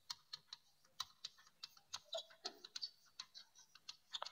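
Chalk writing on a blackboard: faint, irregular taps and short scratches as the letters are formed.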